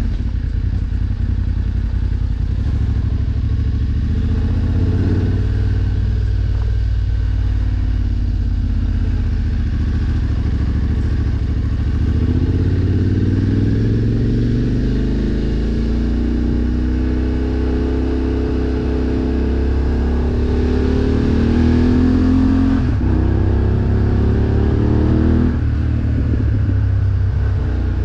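BMW F 850 GS Adventure's 853 cc parallel-twin engine running as the motorcycle is ridden. Its note climbs and drops several times through the middle and later part, as it accelerates and shifts gear.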